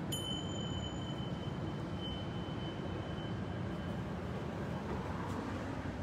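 Steady low outdoor rumble of distant traffic. Near the start a faint high ringing tone sounds once and fades out over about four seconds.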